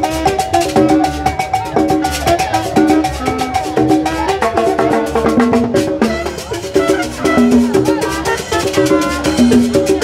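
Live band playing upbeat Latin dance music, with drums and percussion keeping a steady beat under held notes from horns including a saxophone, and a bass.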